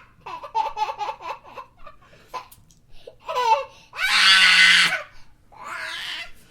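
A child laughing: a quick run of short giggling pulses, a pause, then a loud, high, breathy shriek of laughter about four seconds in, followed by a softer breathy laugh near the end.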